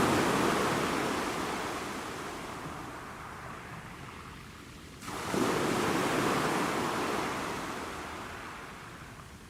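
Sea waves breaking on the shore, twice, about five seconds apart. Each wave comes in suddenly and fades away as the water washes back.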